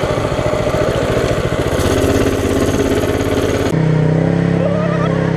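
Minibike's small single-cylinder engine running under throttle, its rapid firing pulses and hiss close to the microphone. Nearly four seconds in the sound changes abruptly to a steadier, smoother engine hum.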